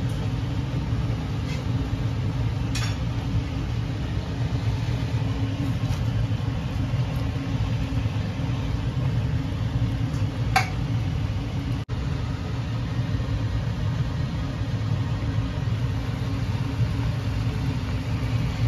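A steady low hum, with two light clinks of a cooking utensil against the pan, one a few seconds in and one about ten seconds in.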